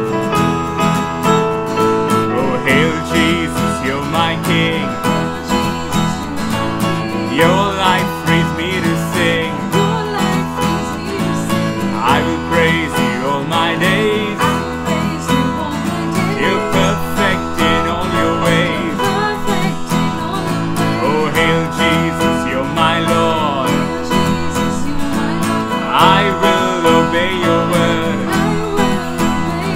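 Acoustic guitar strumming and an electronic keyboard playing a worship song together, with a woman and a man singing over them.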